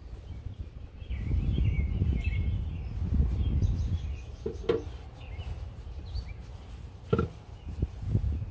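Split firewood pieces knocking against each other as they are moved and set down, a few sharp wooden knocks in the second half. Birds chirp faintly and a low rumble runs through the first few seconds.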